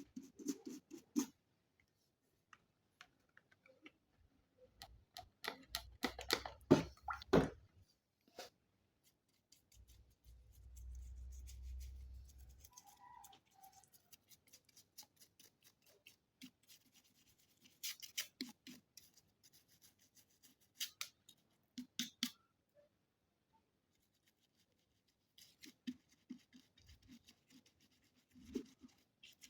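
Intermittent scratching and clicking of a small cleaning tool working dust out of an opened Bluetooth speaker, with the busiest scraping about six to seven seconds in. A low rumble lasts for about two seconds near the middle.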